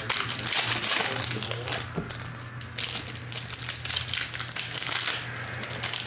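Foil wrapper of a Panini Contenders football card pack crinkling as hands tear it open and peel it apart.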